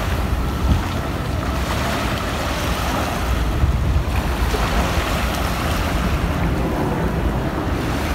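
Steady wind buffeting the microphone, with small waves washing against a rocky shore.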